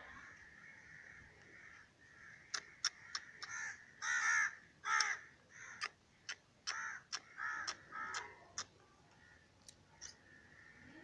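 Black francolin calling: a run of sharp clicking notes and harsh, grating call notes that begins a couple of seconds in, lasts about six seconds and is loudest in the middle, then stops.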